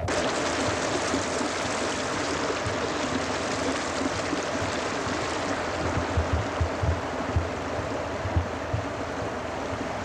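Rushing water running over rocks, a steady rush that starts abruptly, with a few low bumps in the second half.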